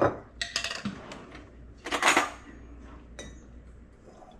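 Cutlery clinking and knocking against dishes and a jar of hot peppers as they are served out: a few sharp taps, then a louder clatter about two seconds in and a last ringing tap.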